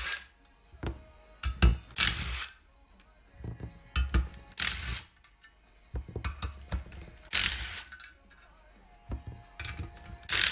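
Cordless drill with a 12 mm socket spinning out the clutch pressure-plate-to-flywheel bolts, running in four short whirring bursts roughly every two and a half to three seconds. Light clicks and the clatter of loosened bolts come between the bursts.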